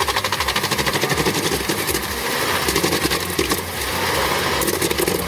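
Truck-mounted drum wood chipper running under load, a fast rattling clatter over the machine's engine.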